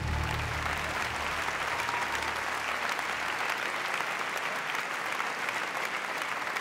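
Large theatre audience applauding, a steady dense clapping.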